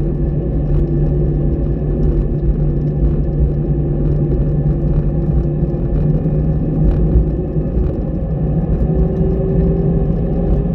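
Airbus airliner's jet engines running: a steady low rumble with a constant hum, and a higher tone that rises slightly near the end.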